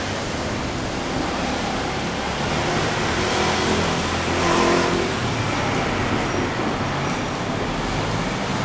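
Road traffic: a car going past close by, loudest about halfway through, over a steady background of traffic noise.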